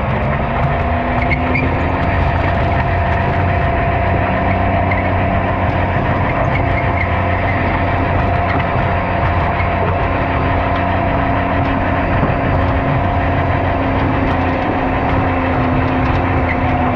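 Diesel garden tractor engine running hard under load as it pulls the weight sled down the track, steady throughout with a steady whine over the engine note.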